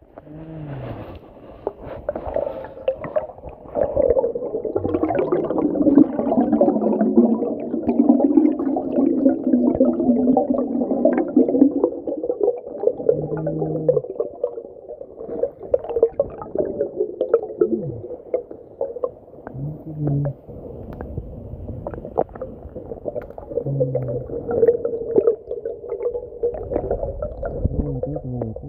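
Muffled underwater sound from a camera held beneath the surface of a shallow swamp: water sloshing and gurgling around it, with many small clicks and knocks as it brushes through weeds, and a few short low hums.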